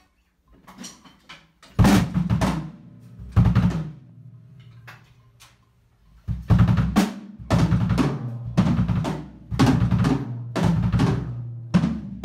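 Heavy metal drum kit and electric guitar played together: a few light hits, then two heavy crashing accents about two and three and a half seconds in. After a short pause there is a steady run of loud accented hits, with a low chord ringing under them, from about six seconds on.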